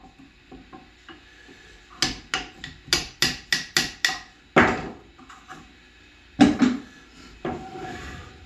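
Claw hammer striking a wood chisel to chop out joint waste in pine: a quick run of about ten blows, roughly four a second, then one louder blow. Another loud knock follows a couple of seconds later. Near the end there is a short scraping as the board is handled.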